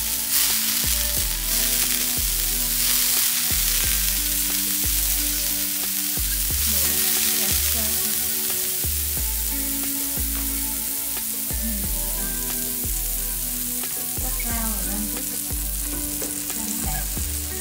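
Butter sizzling as it melts on a hot electric griddle, rubbed across the nonstick plate: a steady frying hiss.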